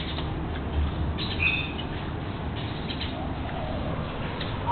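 A dog chewing and tearing at lemongrass stalks, with crunching and rustling. A short high chirp comes about a second and a half in.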